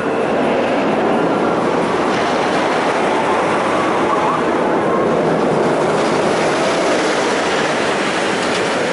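Narrow-gauge steam train running along the track, a steady, loud noise of wheels and running gear on the rails.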